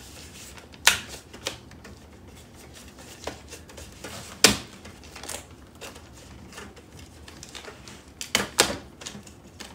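Plastic shrink wrap and aluminium drink cans in a 12-pack being handled as one can is worked free of the wrap. The sound is scattered sharp clicks and crackles, the loudest about halfway through and a quick cluster near the end.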